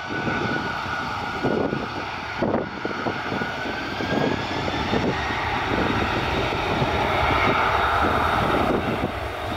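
Twin jet engines of a Boeing 767-300 rolling along the runway, a loud steady roar with a high whine on top. The whine rises slightly about halfway through.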